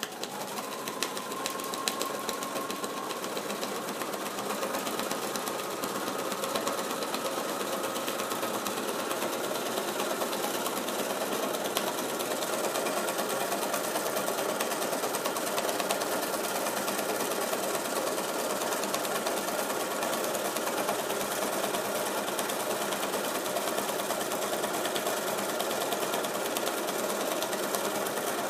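Bernina sewing machine free-motion quilting: it starts up and the needle then stitches at a steady, fast rate.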